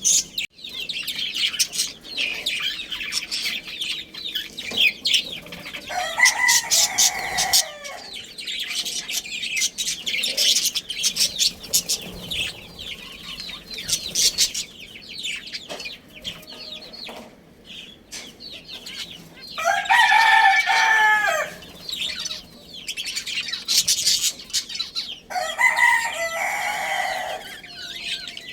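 Budgies chirping and chattering continuously, with a rooster crowing three times, each crow lasting a second or two.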